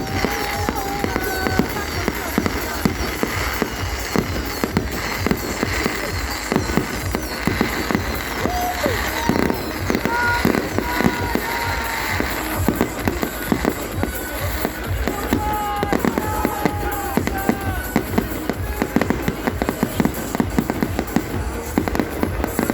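New Year fireworks going off continuously: a dense run of bangs and crackles with no break.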